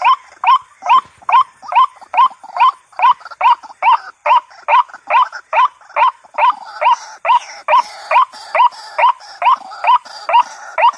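White-breasted waterhen calling: a long even series of short, loud rising notes at about two to two and a half a second, the repeated croaking call used as a lure for the bird.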